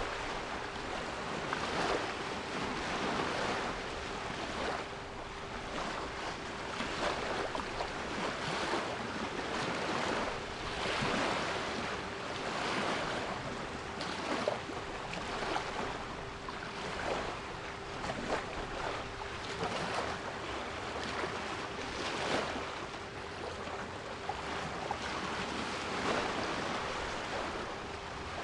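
Sea waves washing in and out in a rolling hiss that swells every few seconds, with a steady 396 Hz pure tone held underneath.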